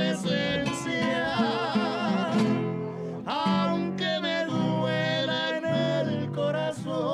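Music: a song with plucked guitar and a singing voice, the voice wavering in a vibrato.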